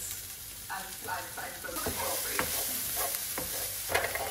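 Food sizzling in a frying pan while it is stirred. The sizzle grows louder a couple of seconds in, and the utensil knocks against the pan a few times.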